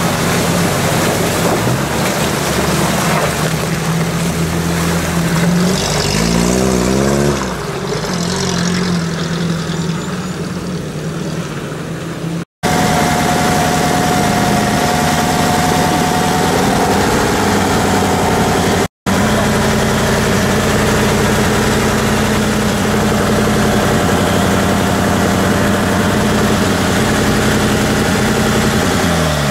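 Off-road vehicle engines: a UAZ jeep running through a rushing river ford, then, after a cut, a Toyota Land Cruiser's engine running steadily at idle with its hood open. The sound cuts out briefly twice.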